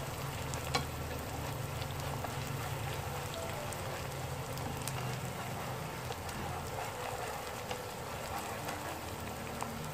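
Chili sate paste sizzling steadily in hot oil in a frying pan while it is stirred, with a few light clicks of the stirring utensil.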